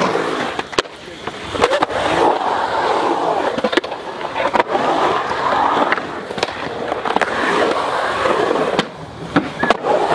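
Skateboard wheels rolling on the concrete of a skate bowl, the rolling noise swelling and fading in waves as the rider carves up and down the walls, with a few sharp clacks of the board.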